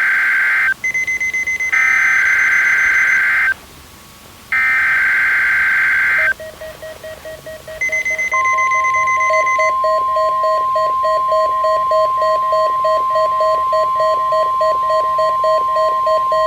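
Emergency Alert System SAME header: three harsh digital data bursts, with short chirpy beeps between them. About 8 seconds in, a steady 1050 Hz weather radio warning alarm tone starts and holds, over a pulsing alert beep of about two beeps a second that began a little earlier.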